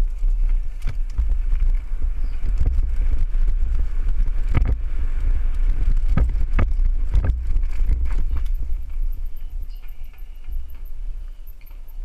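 Mountain bike riding fast down a rough dirt trail: steady wind rumble on the microphone with the bike rattling and sharp knocks as the wheels hit bumps, the knocks thickest around the middle and easing off near the end.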